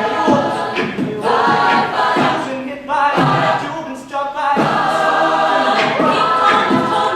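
A cappella vocal group singing together in harmony, several voices with no instruments.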